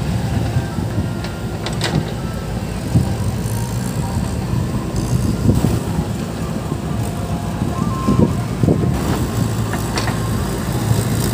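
Diesel engines of a JCB 3DX backhoe loader and farm tractors running steadily with a deep hum, with a few sharp knocks.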